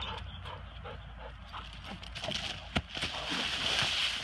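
Footsteps hurrying through dry leaf litter and brush, with irregular rustles and crunches and one sharp snap partway through; a dog is heard as well. The rustling grows louder near the end.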